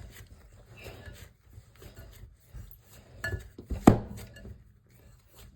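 Kitchen handling sounds: a bowl and utensils being moved about on the counter, with light rubbing and small clinks and one sharp knock about four seconds in.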